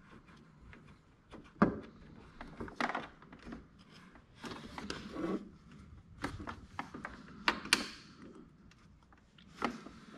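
Small clicks and knocks of a hand tool and metal cable terminal as a screw is tightened down, with a few sharper taps about one and a half, three and seven and a half seconds in, among quiet handling rustle.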